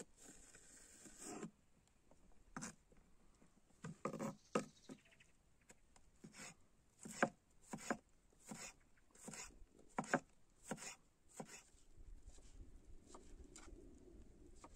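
A knife chopping on a wooden cutting board in slow, uneven strokes, about fifteen knocks in all, with a faint low hum coming in near the end.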